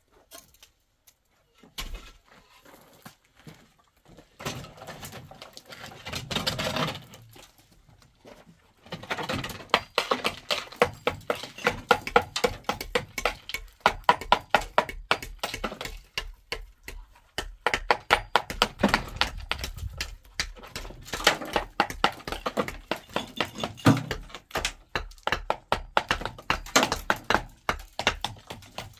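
Hammer and mason's trowel knocking and tapping on hollow concrete blocks and mortar: after a short rasping noise about five seconds in, quick sharp taps come several a second from about nine seconds in.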